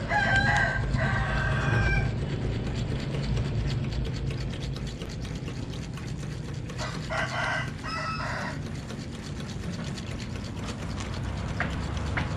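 A rooster crowing twice, each crow about two seconds long and roughly five seconds apart, over a steady low rumble.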